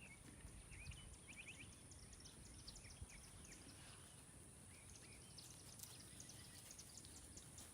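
Near silence: faint rural outdoor ambience with scattered soft bird chirps and a steady high-pitched whine.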